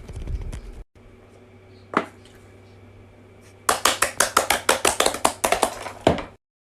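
A quick run of sharp clicks or taps, about eight a second, lasting a little over two seconds and stopping abruptly, with a single tick shortly before it.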